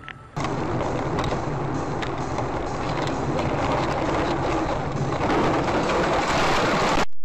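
Loud, steady noise of a moving car's road and engine sound, starting abruptly about half a second in and growing a little louder near the end.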